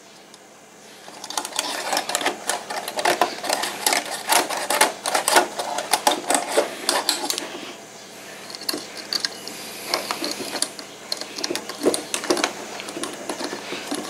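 Thin mechanics wire being pushed and twisted into the clogged water tube of a drip coffee maker, scraping and clicking rapidly against the tube and the plastic housing. The clicking starts about a second in, is densest for several seconds, then thins out.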